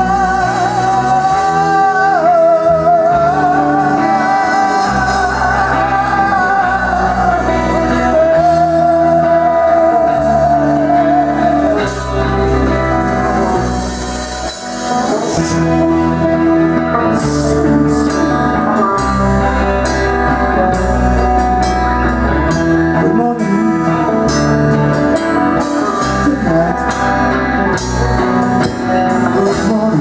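A live rock band with a male lead singer, guitar and bass guitar. For roughly the first twelve seconds the singer holds a long, high note with a wide vibrato over the band, then the guitar and bass carry on playing.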